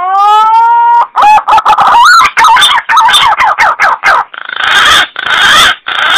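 Green pigeon (punai) calling: a rising whistled note, then a rapid run of warbling whistles, ending in three rough, rasping notes.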